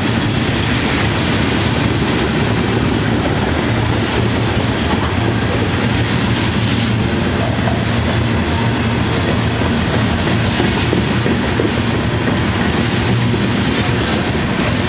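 Freight train of covered hopper cars rolling past close by: steel wheels running on the rails in a loud, steady rumble.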